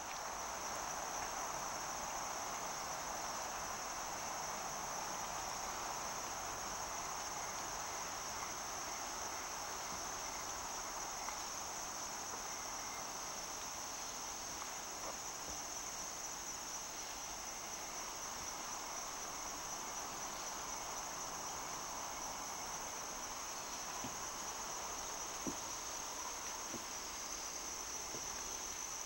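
Steady chorus of crickets: a continuous high-pitched trill that never breaks, over a softer, lower hiss of night insects. There is one faint tick about 25 seconds in.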